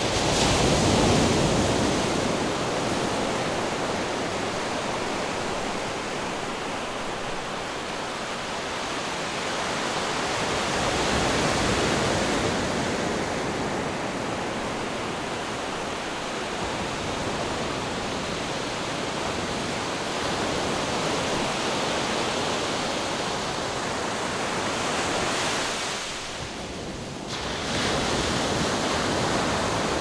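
Ocean surf: a steady rushing wash of breaking waves and foam that swells louder and eases off in slow surges, with a short lull near the end.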